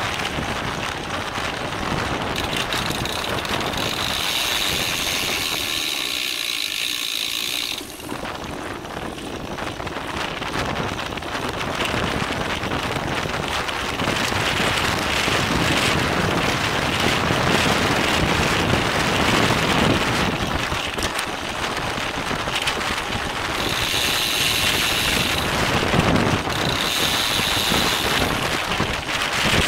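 Wind buffeting a bike-mounted camera's microphone, with tyre and road noise from a racing bicycle. There are stretches of rapid freewheel hub buzzing while the rider coasts: for a few seconds about four seconds in, and twice more near the end.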